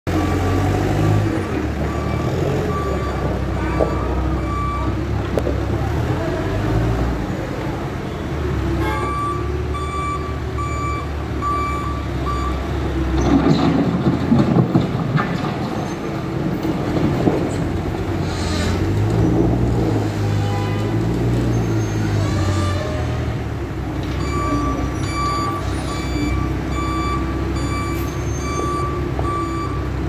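New Holland backhoe loader's diesel engine running under work, with its reversing alarm beeping steadily in several stretches. About halfway through there is a louder, rougher stretch of noise, and a little later the engine note rises and falls.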